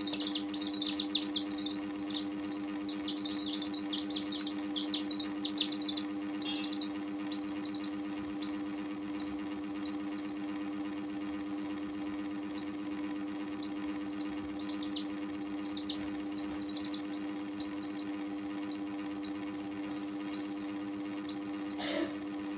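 Baby chicks peeping: rapid, crowded peeps for the first several seconds, then single peeps spaced about once or twice a second. A steady low hum runs underneath, with a brief knock near the end.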